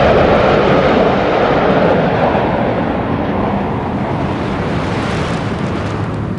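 Formation of five MiG-29 fighter jets flying past, a loud jet roar that slowly fades and drops in pitch as the aircraft move away.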